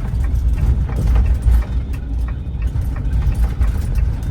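The van's engine running with a steady low rumble, heard from inside the cabin.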